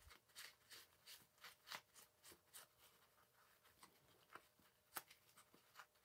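Very faint rustling and light scraping of a paper shop towel wiping thick, gooey grease out of a mountain bike rear hub in short strokes, the loudest about five seconds in.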